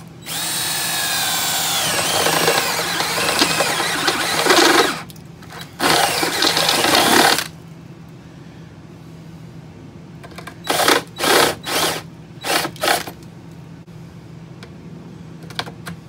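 Cordless drill with a step drill bit boring a 3/4 inch hole through the door frame: a long run of about four and a half seconds, its whine dipping as the bit bites, then a shorter run, then five quick trigger bursts as the hole is finished.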